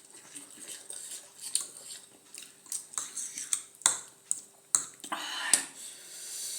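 Cutlery clicking against a bowl and plate several times, sharp separate clicks about a second apart, as food is picked up during a meal.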